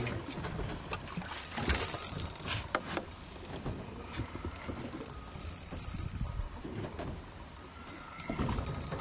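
Steady low rumble with many scattered clicks and knocks, the noise of fishing gear being handled aboard a boat.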